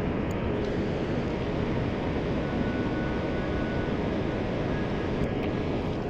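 Rushing water of river rapids: a steady, unbroken rush.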